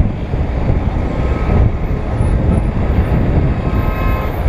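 City street traffic heard from a GoPro on a moving bicycle, under a heavy, steady low rumble of wind and road noise on the microphone. A faint steady tone comes in about three seconds in.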